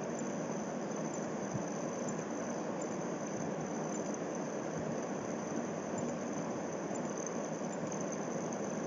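Steady background hiss with a thin, high, constant whine on top; no distinct events.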